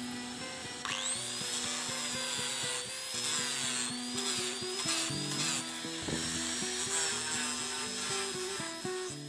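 Background music with a steady beat of stepped notes, over the whine of a small power tool such as a drill that spins up sharply about a second in and then wavers in pitch as it works.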